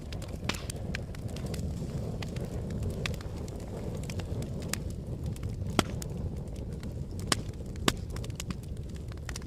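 A fire crackling: a steady low rumble of flames with scattered sharp pops and snaps, three of them louder in the second half.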